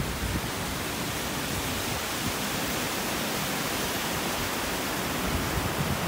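Large waterfall's falling water rushing as a steady, even hiss of noise.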